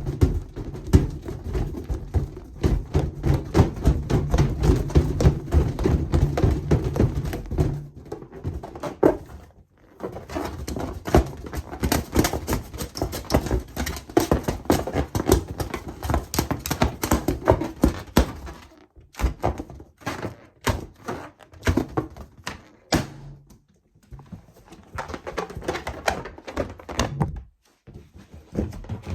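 Latex balloons being handled, with dense, irregular rubbing, knocking and clicking sounds and a heavy low rumble for the first several seconds. A few separate sharp cracks follow about two-thirds of the way through.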